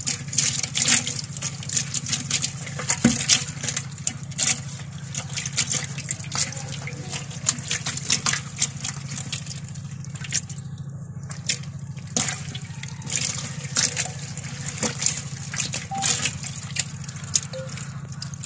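Shallow water splashing in many quick, irregular bursts as a hand scoops through a crowded tub of live climbing perch (Vietnam koi) fingerlings and the fish flap and wriggle. A steady low hum runs underneath.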